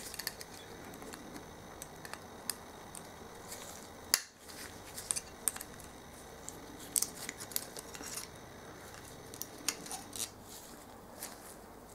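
Circlip pliers clicking and scraping against a steel pit bike gearbox shaft as a circlip is worked off, in scattered light metal ticks with a sharper click about four seconds in.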